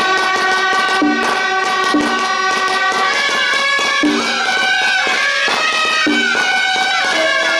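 Suona shawms playing a loud, reedy melody over steady drum beats: traditional Taiwanese temple procession music.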